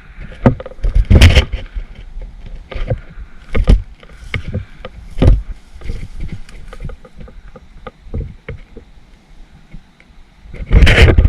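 Footsteps sloshing through marsh water and mud: irregular splashing thuds, with a louder cluster about a second in and another near the end.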